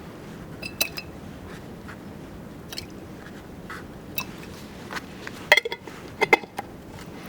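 Scattered light clicks and clinks of small metal parts being handled, with a quick cluster of clinks about five and a half seconds in and another about a second later, over a steady low hum.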